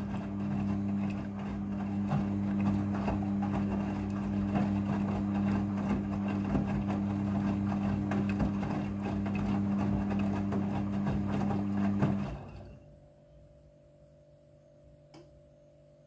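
Midea front-loading washing machine turning its drum during the rinse: a steady motor hum with wet clothes tumbling inside. About twelve seconds in the drum stops and the sound drops to a faint hum, with a single small click near the end.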